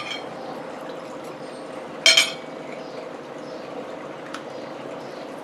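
Tableware clinking during a meal: a short clink at the start, then a louder, ringing double clink about two seconds in, over a faint steady hum.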